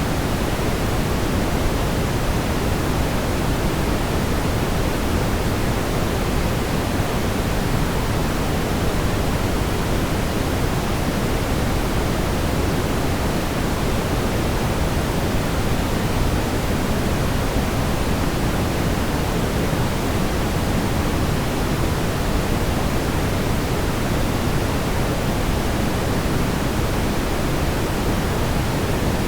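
Steady synthetic brown noise: a smooth, even rush, deepest and strongest in the bass and thinning out toward the treble, with no change in level.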